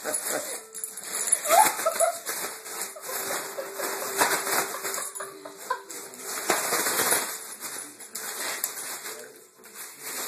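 A foil balloon crinkling and rustling in irregular bursts as a small dog bites and shoves it, with the dog's claws clicking and scuffling on a vinyl floor.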